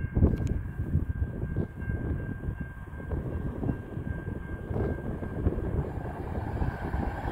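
Wind buffeting the microphone over the low rumble of a diesel freight train approaching from a distance. A faint steady high tone runs throughout.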